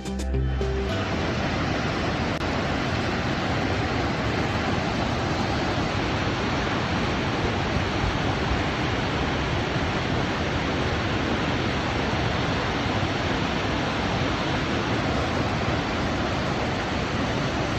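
Wallace Falls, a waterfall, giving a steady, even rush of falling water with no let-up.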